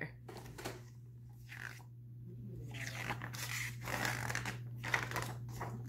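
Paper pages of a paperback picture book rustling and crackling as they are leafed through by hand, starting about halfway in, over a steady low hum.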